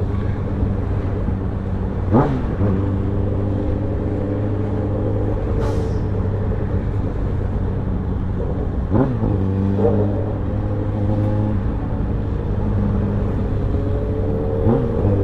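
Suzuki Bandit 650N's inline-four engine running steadily, with quick throttle blips that rise and fall in pitch about two seconds in, twice around nine to ten seconds in, and near the end.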